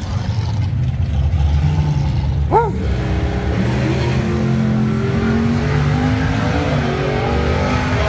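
Car engine running under a steady low rumble, its pitch slowly rising over several seconds as it picks up speed. A short whoop cuts in about two and a half seconds in.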